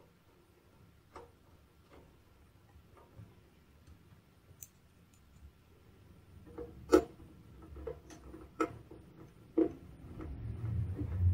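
Light, scattered clicks and ticks of screws and a Phillips screwdriver against the UPS's metal back panel as the back screws are re-secured. The clicks are faint at first, with a few sharper, louder ones about seven to ten seconds in, followed by a low rumble near the end.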